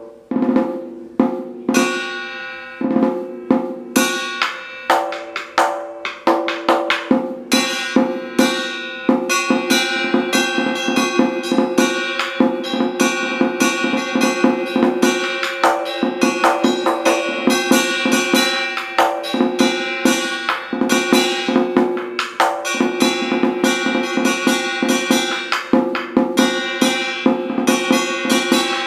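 Vietnamese trống chiến (war drum) struck with two wooden sticks in a fast, driving rhythm, the skin head ringing in a steady tone under the strokes. Spaced strokes at first, tightening into dense rolls after about nine seconds.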